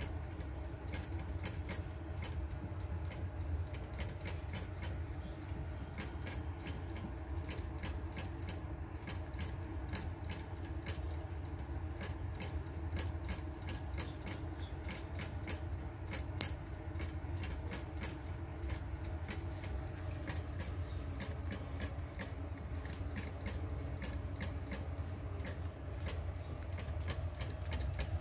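A ginger tabby cat lapping water from a plastic tub: quick, small wet tongue clicks, about three or four a second, over a steady low hum.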